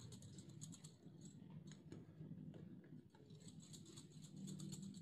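Faint, soft sticky clicking of oiled hands pinching off and rolling paneer dough into small balls, over a low steady background hum.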